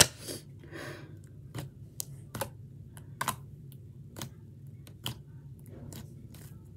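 Thick cinnamon puff slime, with cereal-like puffs mixed in, being pressed and poked with the fingers on a glass tabletop, making sharp clicky pops about one or two a second. A louder smack at the very start.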